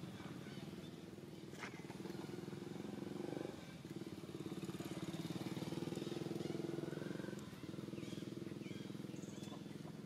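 A small engine running nearby with a steady, fast throb, louder through the middle of the stretch.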